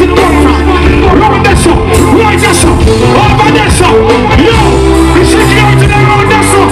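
Loud live music through a concert PA: a heavy steady bass line and a regular beat, with a singing voice over it.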